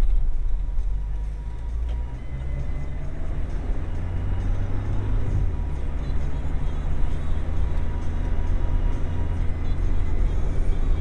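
Car driving at a steady speed, heard from inside the cabin: a deep, continuous rumble of engine and tyres on the road.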